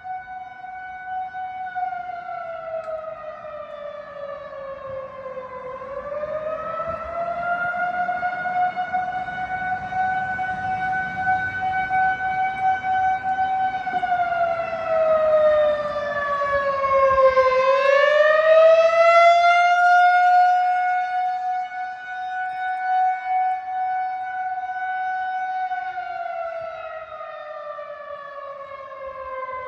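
Outdoor tornado warning siren sounding a continuous wail. The tone holds steady, sags lower and swings back up about every twelve seconds, and it is loudest a little past the middle.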